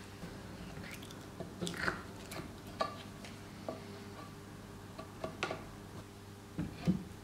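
Timber window-frame parts being handled and fitted together on a workbench: a scattering of light wooden knocks and clunks, the loudest about two seconds in and again near the end, over a low steady hum.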